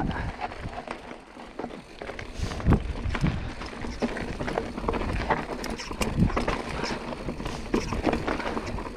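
Giant Stance 29 full-suspension mountain bike rolling fast down a rocky dirt trail: tyres crunching over loose dirt and stones with frequent sharp knocks and clatter over rocks. It is quieter for the first couple of seconds, then busier.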